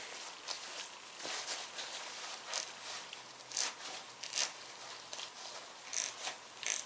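Freshly cleaned and greased vintage Craftsman V-series ratchet being worked back and forth, its pawl clicking over the gear in short, irregular runs. It turns smoothly and quietly.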